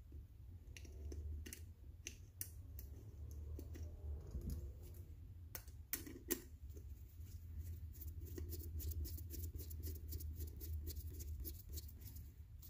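Small screws and hand tools clicking and ticking irregularly against the metal of a carburetor as the screws of its top cover are started in by hand, over a low steady hum. The loudest clicks come a little after the middle.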